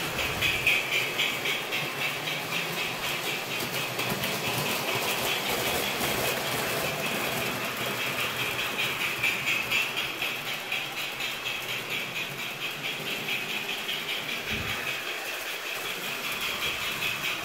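O-scale model steam locomotive and its freight cars running on three-rail track, rattling and clicking in a fast, even rhythm.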